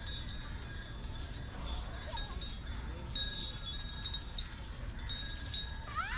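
Small metal bells on ceremonial elephants' trappings jingling and clinking in irregular bursts as the elephants walk, over a low steady rumble. A short rising tone sounds near the end.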